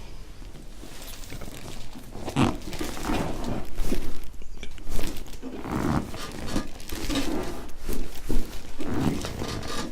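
A person's voice making several low, wordless sounds from about two seconds in, with a few sharper clicks among them.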